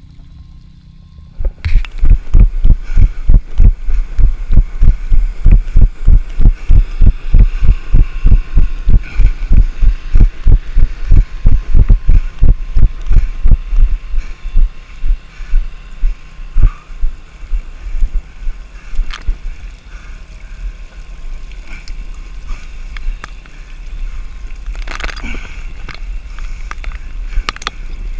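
Running footfalls jolting a body-worn action camera, a heavy thud about three times a second, under steady wind rumble on the microphone. About halfway through they give way to softer, uneven steps, and there are a few sharp knocks near the end.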